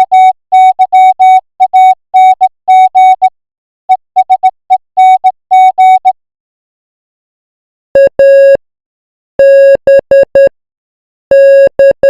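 Morse code sent as a keyed audio tone of short dits and longer dahs. A quick run of beeps at a higher pitch lasts about six seconds, then after a pause of about two seconds come slower groups of beeps at a lower pitch.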